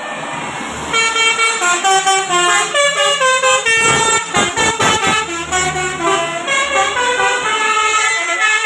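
Bus 'telolet' basuri musical horn playing a fast melody of quick stepped notes, starting about a second in over road and traffic noise.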